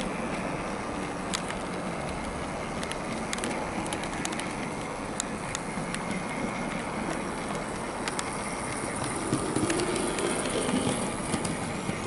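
Rapido Trains LNER J70 tram model locomotive running slowly along the layout's track: a steady motor and wheel noise with scattered small clicks, growing louder about nine seconds in.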